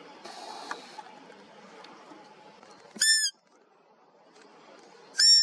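Two short, high whistled fiep calls of the roe deer kind, about two seconds apart, each bending down in pitch at its end. This is the doe's contact call, used in the rut to draw a roebuck in.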